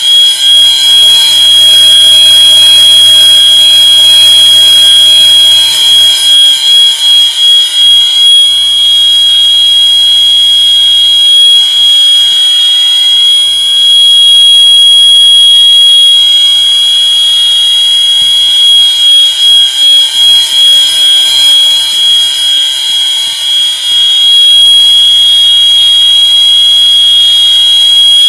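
Fire alarm signals sounding together: several horns set to slow whoop, each playing a rising sweep over and over and out of step with one another, over a steady high ringing tone.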